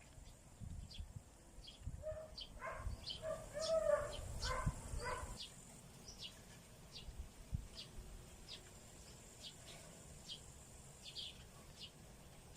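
Small bird chirping over and over in short high chirps, about one or two a second. Between about two and five seconds in, a louder pitched voice makes a run of short notes.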